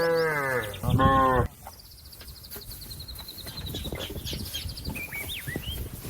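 Cow mooing: a long call that drops in pitch and ends in a louder, lower final part about one and a half seconds in. Afterwards, faint high bird chirps and whistles.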